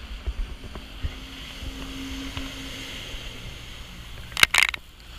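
Jet ski running on open water, heard from aboard: a steady engine hum with scattered low thumps, and two loud short bursts of noise about four and a half seconds in.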